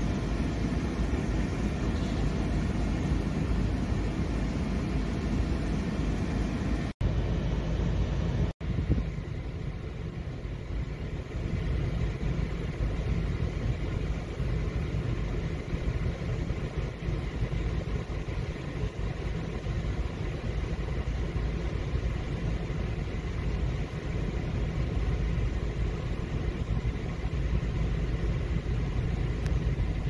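4x4 vehicle's engine idling, heard from inside the cabin as a steady low rumble. It breaks off for an instant twice, about seven and eight and a half seconds in.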